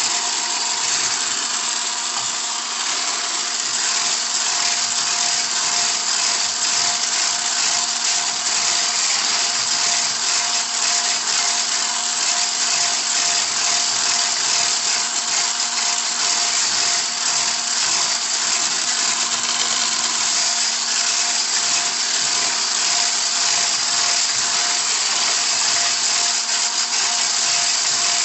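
Electric hand mixer running steadily at one speed, its beaters whisking a creamed mixture of ghee, oil and sugar in a glass bowl: a constant motor whirr with a steady hum.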